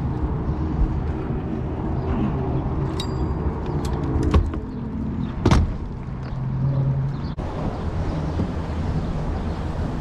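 A boat motor running steadily with a low hum, with a few sharp knocks near the middle.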